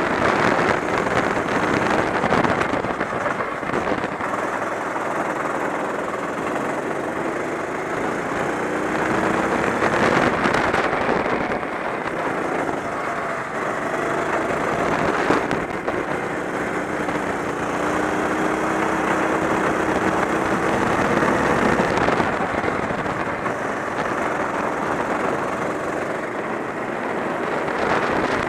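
Go-kart engine running hard at racing speed, its pitch climbing several times as the kart accelerates, under heavy rushing wind and road noise on the onboard microphone.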